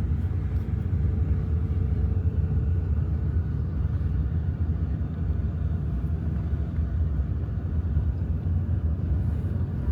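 Steady low vehicle rumble, even and unchanging, starting abruptly at a cut.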